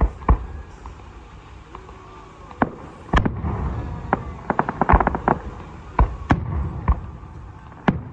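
Aerial fireworks going off: a string of sharp booms, with a quick burst of rapid crackling pops about halfway through.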